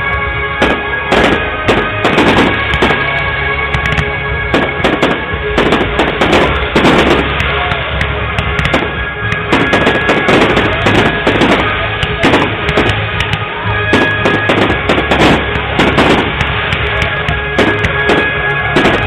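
Fireworks display: aerial shells bursting in a quick, irregular run of bangs and crackles, with music playing underneath, heard through a mobile phone's microphone.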